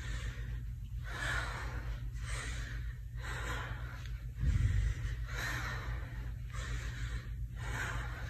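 A woman breathing hard and fast from exertion during rapid air squats, a quick airy breath roughly every half second to second, over a constant low hum. A dull low thud comes about halfway through.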